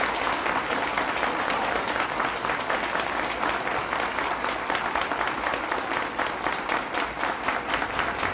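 Audience applauding: many hands clapping in a dense clatter, with the claps falling into a more even rhythm in the second half. The applause cuts off suddenly at the end.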